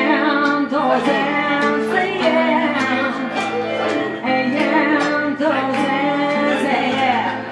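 A woman sings a wavering soul-style melody into a microphone over chords held on an electric keyboard, with a light ticking beat about twice a second.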